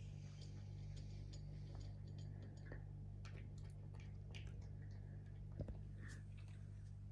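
British Longhair cat eating dry kibble from a ceramic dish: faint, scattered crunches and clicks from teeth and tongue, over a low steady hum, with one louder knock about five and a half seconds in.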